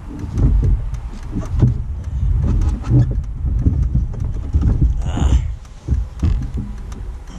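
Snowmobiles running across snow, heard under heavy, uneven wind buffeting on the microphone. A brief higher sound rises above it about five seconds in.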